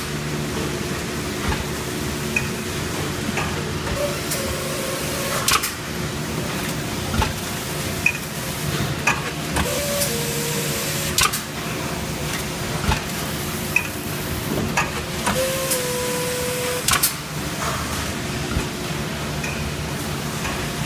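A MAP tray-sealing machine running on a food-packing line: a steady drone and hum with irregular sharp clanks and knocks throughout.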